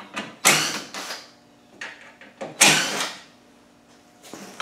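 Two short scraping rattles about two seconds apart, with a few light clicks between them: hand tools and small metal parts being handled and shifted about.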